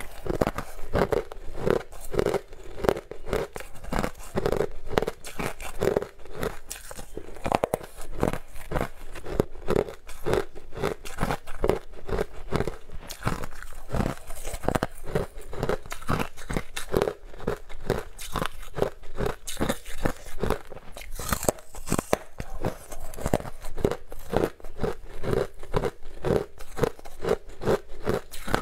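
Close-miked crunching and chewing of sweet flavoured ice, a run of crisp crunches about three a second.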